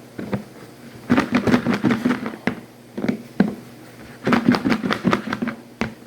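Kitchenware clattering: two runs of rapid knocks, each lasting about a second and a half, with single knocks between them.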